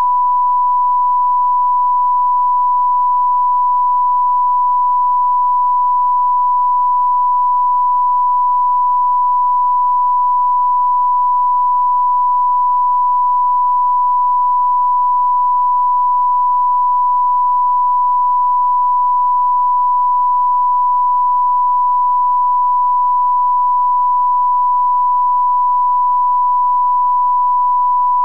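A single steady pure tone, the broadcast line-up reference tone (thousand-cycle tone) played over colour bars at the head of a TV recording, held at one pitch and level throughout.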